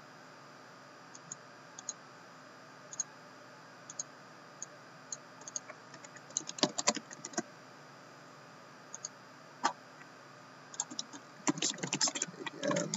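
Keys clicking on a Lenovo laptop keyboard: scattered single keystrokes at first, a quick run about six to seven seconds in, and a burst of fast typing near the end.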